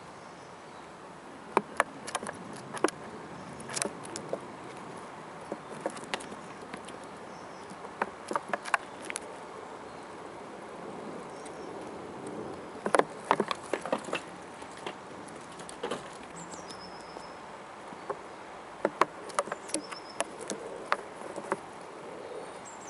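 Grey squirrel eating close to the microphone: irregular clusters of sharp clicks and crunches as it chews its food.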